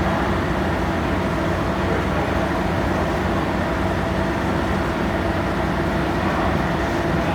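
Ferry's diesel engines and machinery running steadily during departure: a constant drone with a few held tones and no change in level.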